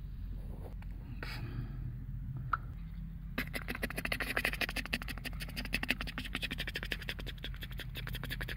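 Small plastic building-block toy car with plastic wheels pushed by hand across gritty dirt: a rapid crackling rattle of wheels and grit starting about three and a half seconds in, after a few scattered clicks.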